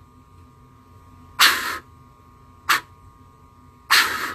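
Canada goose call blown by mouth in three raspy notes: a longer one about a second and a half in, a short clipped one about a second later, and another longer one near the end. These are jump moan notes, each cut off at the back of the throat.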